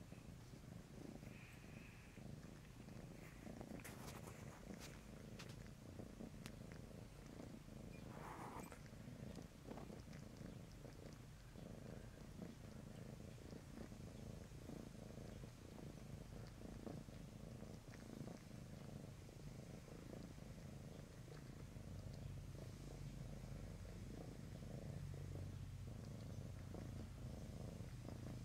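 A cat purring steadily and faintly while kneading its plush bed, with a few soft clicks about four seconds in.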